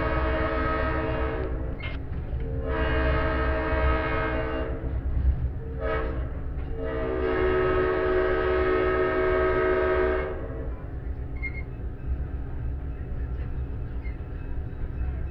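Diesel locomotive's multi-tone air horn sounding from just ahead of the coach: two long blasts, a short one, then a final long blast that ends about ten seconds in. This is the standard long-long-short-long grade-crossing signal. The low rumble of the locomotive and the rolling train carries on underneath.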